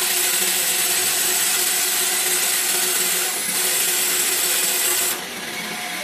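Vertical band saw cutting through the iron side frame of a scrap radiator: a steady harsh sawing noise with a thin high whine over it. About five seconds in the blade clears the cut and the noise drops off.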